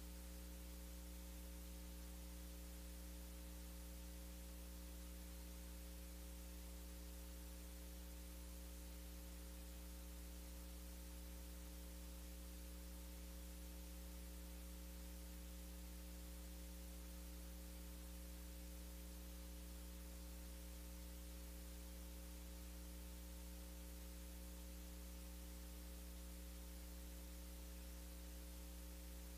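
Steady electrical mains hum with a series of fixed overtones over a faint even hiss; no music or voices.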